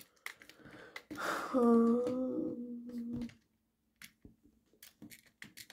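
A boy humming one held note for about two seconds, starting slightly higher and settling. Light clicks of plastic Lego bricks being handled come before and after it.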